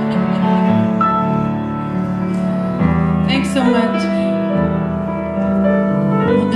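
Piano playing slow, sustained chords that change about every two to three seconds.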